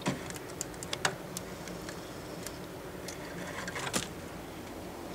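Scattered light clicks and taps, the loudest about four seconds in, over a steady low hum.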